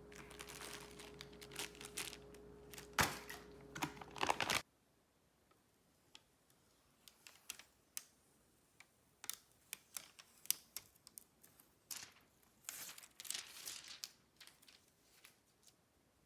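Scattered light clicks and short rustles, like small hardware being handled and clipped into place. A steady low hum with a faint tone runs under them and cuts off suddenly about four and a half seconds in; after that the clicks come one by one, more sparsely.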